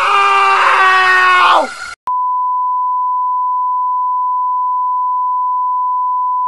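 A loud, sustained wailing scream holds its pitch, then sags downward and cuts off just under two seconds in. After a click, a steady single-pitched test-tone beep begins: the reference tone that goes with colour bars.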